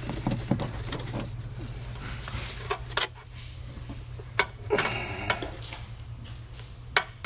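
Small plastic clicks and rustling as a brake pad wear sensor wire's snap-in grommet and connector are pushed back into their hole in the body. A few sharp clicks stand out, the loudest about three seconds in, with a brief scratchy scrape near the middle, over a steady low hum.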